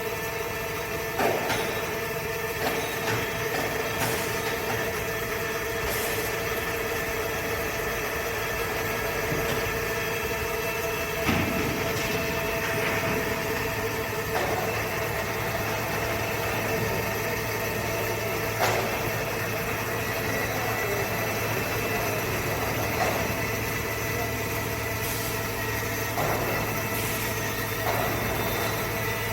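CNC machine running as it machines an electric motor shell: a steady machine hum with several held tones and scattered short clicks and knocks. A lower hum joins about halfway through.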